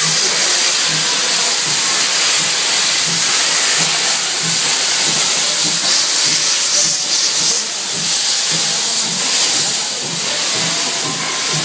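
C12 steam tank locomotive moving off slowly, steam hissing loudly from its open cylinder drain cocks, the usual venting of condensed water when a steam engine starts. Under the hiss runs a low regular beat about twice a second.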